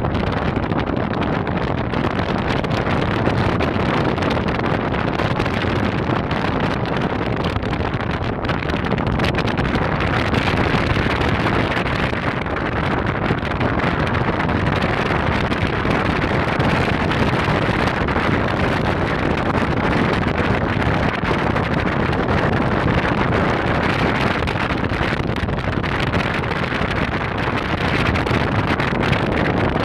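Steady wind rushing over the microphone aboard a moving sightseeing boat, with the boat's engine and the rush of water underneath.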